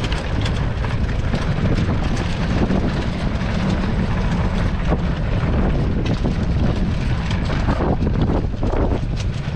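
Turbocharged 125cc four-stroke pit bike riding over rough dirt, its engine running steadily under way. Wind on the microphone, and frequent knocks and rattles from the bumps.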